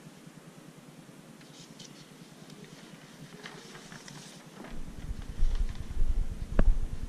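A large sheet of drawing paper is lifted and handled, giving faint light crackles. About two-thirds of the way in, heavy low thumps and rumble from walking carried on a head-worn camera take over, with a sharp click near the end.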